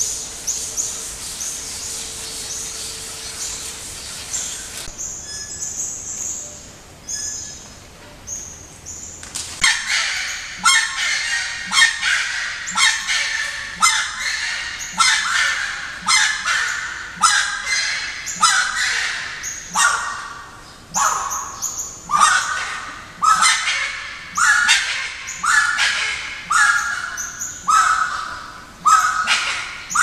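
Wood rail calling: a long run of loud, repeated calls starting about ten seconds in, coming more than once a second, with faint high chirping of small birds before it.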